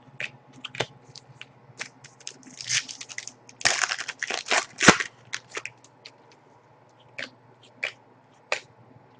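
A 2010-11 Panini Pinnacle hockey card pack being torn open and its cards handled. Scattered light clicks and snaps of cards run throughout. Near the middle come about two seconds of crinkling and tearing of the pack wrapper.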